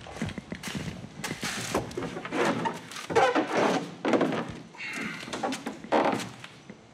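A K1 sprint kayak being handled and lifted onto a boat rack: irregular hollow knocks and scrapes of the hull against the rack, with sandal footsteps on concrete. The loudest knocks come about three seconds in and again near the end.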